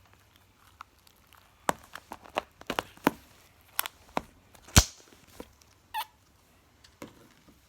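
Scattered small clicks and pops of hands handling slime and its plastic packaging, the loudest a sharp click about five seconds in.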